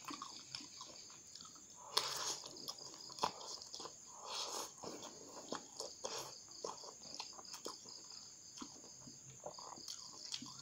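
A person slurping and chewing noodles, with several short slurps and small clicks of a metal fork against a glass bowl.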